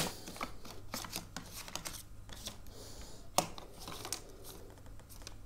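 Quiet handling noises of paper and pen: faint rustling with scattered light clicks and taps, the sharpest click right at the start and another about three and a half seconds in.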